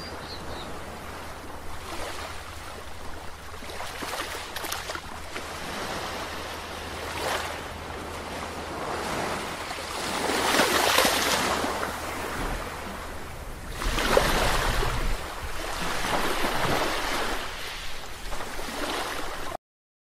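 Ocean surf washing in and out, with a louder wave surging about halfway through and another a few seconds later. The sound cuts off abruptly just before the end.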